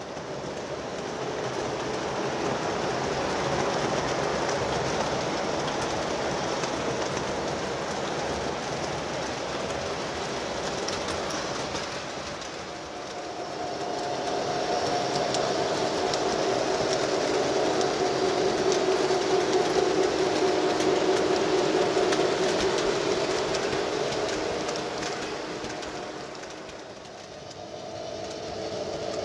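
O scale model trains rolling on three-rail track, a steady sound of wheels and motors. A humming tone comes in about halfway through and fades out near the end.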